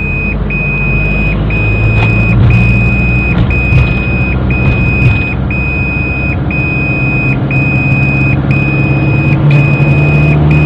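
A car's seat-belt warning chime beeping steadily, about once a second with short gaps between the beeps, over the engine of a manual car running in second gear.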